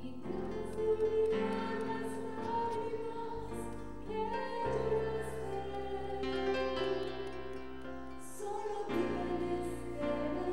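Christian worship song sung by a group of women's voices over long-held electronic keyboard chords.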